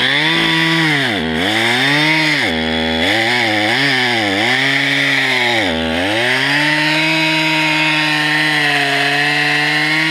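Two-stroke chainsaw cutting wood with a freshly filed chain. The engine speed rises and dips several times in the first six seconds, then holds steady at high revs for about four seconds.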